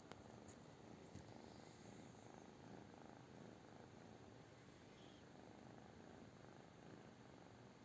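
British shorthair cat purring faintly and steadily.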